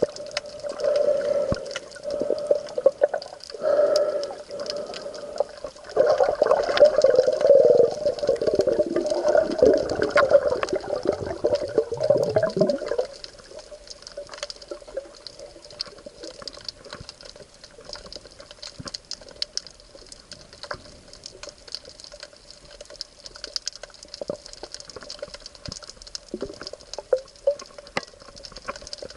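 Water rushing and bubbling around the camera in bursts, loudest for several seconds in the first half, then dropping to a quieter bed of scattered small crackling ticks over a faint steady hum.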